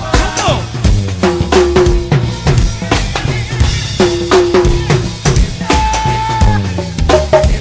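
Hip-hop music: a drum-kit beat with kick, snare and rimshot hits under sustained synth or bass notes, between rapped vocal lines.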